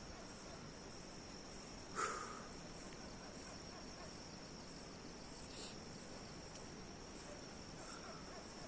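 Crickets trilling in one steady high tone, with a single brief louder sound about two seconds in.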